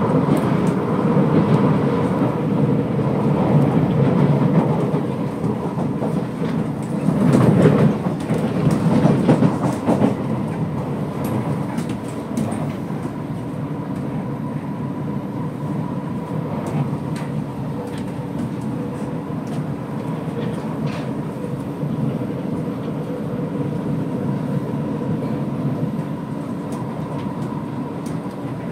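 C751B electric train with Fuji Electric IGBT-VVVF traction heard from inside a car running at speed: a steady rumble of wheels on track with a thin steady tone. About seven seconds in it grows louder for a few seconds with rattling clatter, then settles back to the even rumble.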